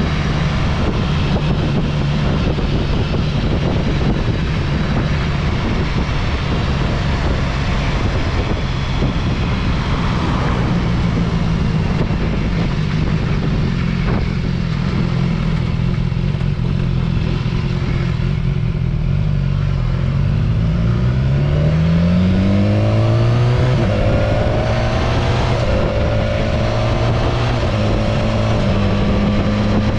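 Motorcycle engine running under way at a steady speed, with wind and tyre noise; about two-thirds of the way through it accelerates, its pitch rising over a couple of seconds, then holds steady at the higher speed.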